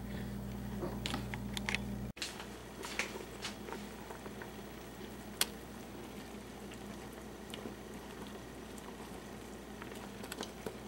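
For the first two seconds, a steady low hum with a few faint taps on a floured cutting board. Then a stockpot of chicken broth at a rolling boil, bubbling and crackling with small splashes as dough dumplings are dropped in by hand.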